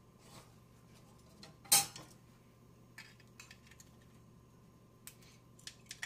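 Scattered metal clinks and knocks as a steel bracket is handled against a frying pan and gas-stove grates, with one sharp knock about two seconds in and a few light clicks after.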